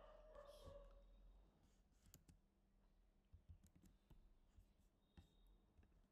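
Near silence with a few faint, scattered clicks of computer input while code is being edited.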